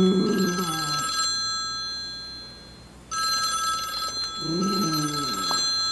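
A telephone rings with a steady electronic trill that breaks off about a second in and starts again about three seconds in. Over it a miniature schnauzer gives short, low howls, once at the start and again near five seconds in.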